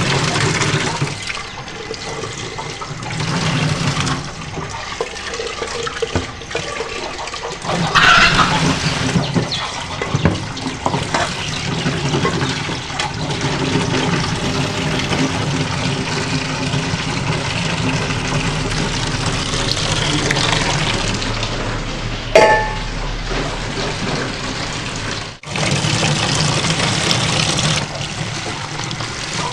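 Water running and splashing steadily, with a sharp knock about twenty-two seconds in and a brief break a few seconds later.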